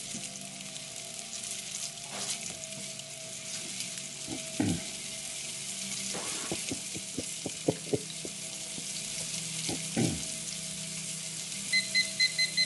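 Blackened yellowfin tuna steaks sizzling steadily in a smoking-hot cast iron skillet of oil and butter, with a few sharp knocks against the pan. Near the end, a rapid run of short electronic beeps from a digital kitchen timer being set.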